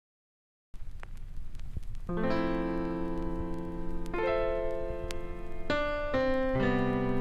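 Intro music starting about a second in: sustained keyboard chords, electric piano-like, changing every second or two.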